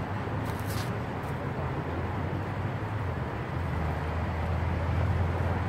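Steady city traffic rumble, with a low engine drone swelling louder in the second half as a vehicle passes.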